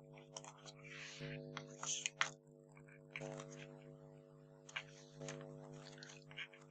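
Faint paper handling: light rustling and small clicks as a die-cut paper star is peeled from its foam-pad backing and pressed onto a card, over a steady low hum.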